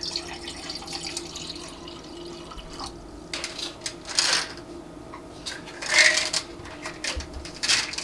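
Water poured from a plastic pitcher into a glass for about three seconds. Then come several short knocks and rattles as bottles are handled, the loudest just past the middle.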